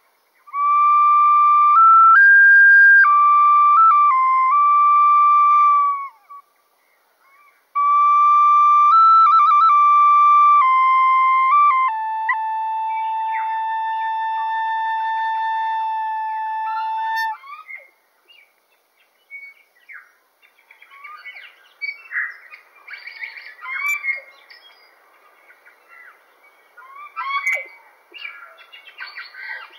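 A flute-like whistled melody of steady held notes in two short phrases, with quick trills, ending on a long held lower note. After it, birds chirp and call irregularly and more quietly.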